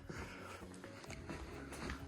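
Faint background music in a small room during a pause in talk.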